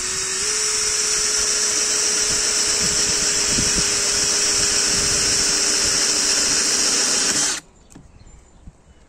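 DeWalt DCD777 20V cordless drill/driver running steadily under load as an old, dull wood bit with a centre point bores through a block of oak, the motor holding one even pitch. It stops abruptly about seven and a half seconds in as the bit breaks through.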